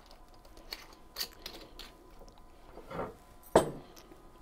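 Small kitchen handling sounds: light clicks and taps as a glass sake bottle is capped and put back, then a single sharp knock about three and a half seconds in as it is set down on the counter.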